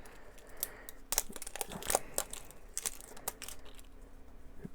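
Plastic packaging of a blind-bag toy capsule crinkling and crackling as it is handled and torn open, with scattered sharp clicks.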